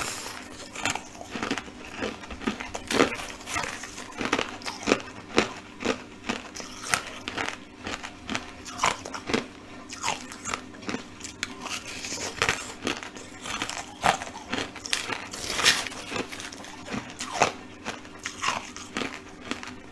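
Crushed coloured ice being bitten and crunched between the teeth: irregular sharp crunches, two or three a second, over a faint steady hum.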